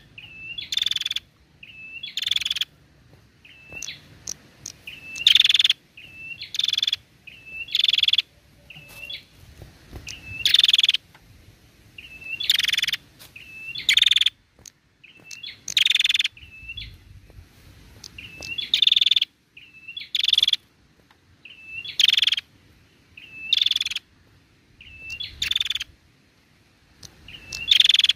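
Female prenjak calling persistently: high, sharp call phrases repeated about once every two seconds, each a loud note followed by a couple of short hooked notes.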